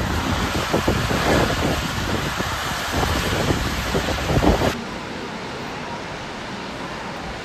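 Wind buffeting the microphone over the hiss of motorway traffic on a wet road. About four and a half seconds in it cuts abruptly to a quieter, steady outdoor hiss.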